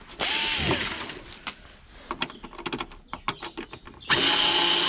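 Cordless screwdriver unscrewing a small CRT TV's plastic back casing: a brief run of the motor just after the start, then scattered clicks and knocks of the plastic casing being handled, and just after four seconds the motor starts again and runs steadily with a high whine.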